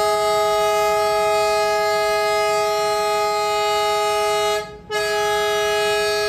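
ALCO diesel locomotive's air horn blowing a long, steady blast of several tones sounding together. It breaks off briefly about four and a half seconds in, then sounds again.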